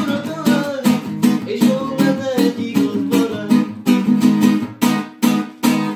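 Acoustic guitar strummed in a steady rhythm, about three strokes a second, with a man singing along; the playing stops suddenly at the very end.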